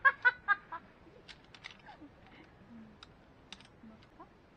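A burst of four quick, loud pitched calls at the start, followed by scattered light clicks and rustles of camping gear as a backpack is unpacked and a folding camp stool is taken out.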